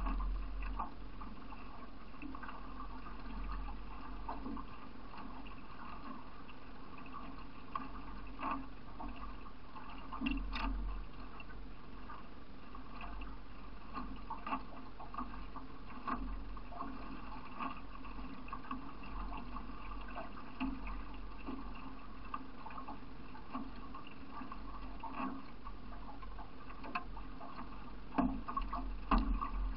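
Water gurgling and splashing around a solo racing canoe as it is paddled down a river, with scattered light knocks.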